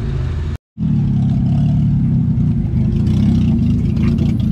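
Car engine and exhaust running with a steady low rumble. The sound cuts out completely for a moment about half a second in, then carries on.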